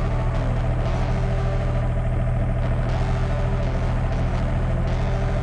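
Hitachi 35U mini excavator's diesel engine running steadily as the bucket digs snow, with a hydraulic whine that slides up and down in pitch as the boom and bucket move.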